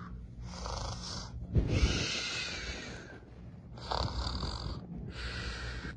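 A person imitating snoring, a run of breathy in-and-out snores, about four of them with short gaps between.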